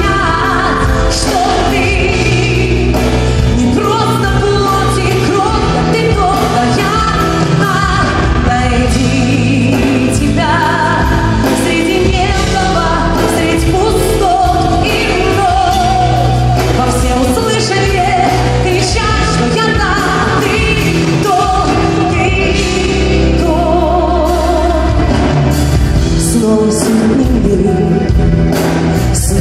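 Live pop music: a woman sings a slow melody with vibrato over a band of bass guitar and drums, heard through the hall's amplification.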